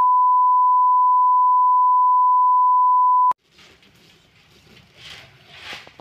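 Steady test-card beep, a single unwavering tone, cutting off suddenly a little over three seconds in. Faint scuffing and rustling noises follow.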